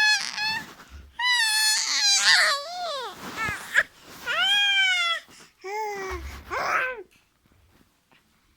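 A baby making loud, high-pitched squealing cries in about five bursts, the pitch sliding up and down, stopping about seven seconds in.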